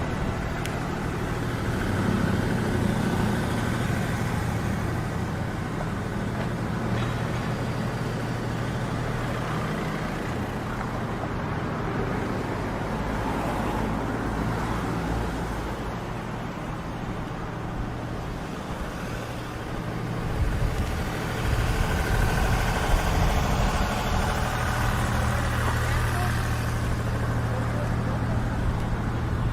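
City street traffic: motor vehicles running past with a steady low engine hum, louder from about twenty seconds in.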